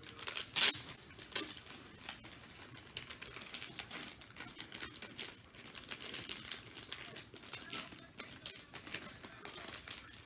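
Plastic packaging bag crinkling and rustling as a squishy toy is pulled out of it. There is a sharp, loud crackle about half a second in, then irregular rustling.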